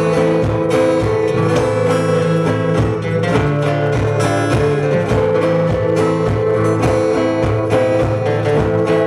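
Acoustic guitar music, strummed in a steady rhythm over held notes.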